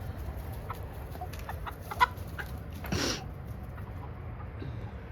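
Chickens clucking in short, scattered calls, with a sharp tap about two seconds in and a brief harsh, noisy burst about a second later.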